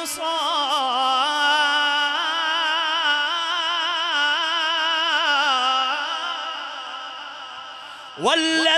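Man reciting the Quran in melodic tajweed style, drawing out the word 'wal-ansar' as one long ornamented note with a wavering vibrato. The note fades away, and the next phrase of the verse begins just before the end.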